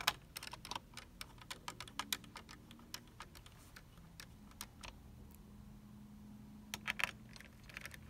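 Irregular light clicks and taps of hands handling the hard drive and small screws on an open laptop's plastic and metal chassis. The clicks come thickest in the first couple of seconds and again in a short cluster about seven seconds in.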